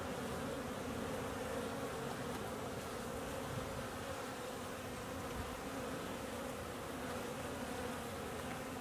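Many honeybees buzzing in flight around their hive, a steady drone of bees out on cleansing flights during a winter warm spell.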